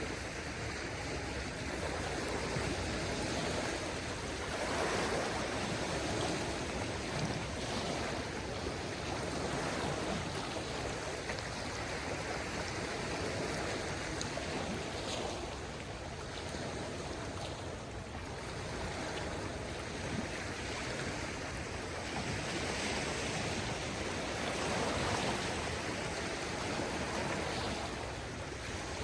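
Small waves on a calm sea washing onto the shore, a steady wash of water that swells gently every few seconds, with a light breeze.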